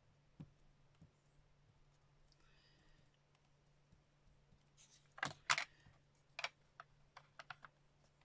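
Sharp plastic clicks and taps from handling ink pads and a clear acrylic stamp block: a cluster of loud clicks about five seconds in, then a quick run of lighter taps, over a faint steady hum.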